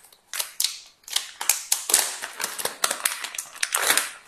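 Plastic packaging bag crinkling and crackling as it is pulled open and handled, a dense run of sharp irregular crackles, loudest just before the end.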